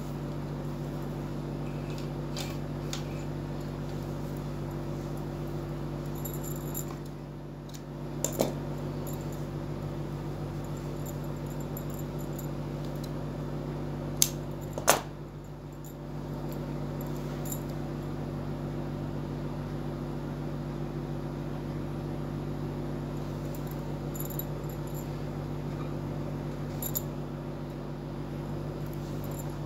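A steady low hum with no stitching, broken by a few light clicks and clinks about 8 seconds in and around 14 to 15 seconds in, as sewn fabric is handled and pulled from under a sewing machine's presser foot.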